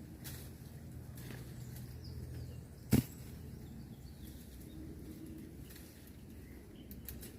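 A single sharp knock about three seconds in, over a faint low background with scattered small clicks.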